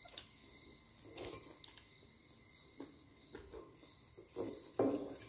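A metal fork working on a grilled chicken wing on a ceramic plate: a few soft scrapes and knocks, loudest near the end. A faint steady high tone runs under it.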